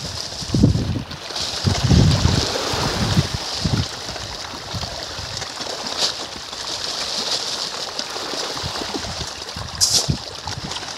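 A dense shoal of feeding pond fish churning and splashing at the water's surface: a steady rush of splashing water, with a few low thumps in the first four seconds and one sharper splash near the end.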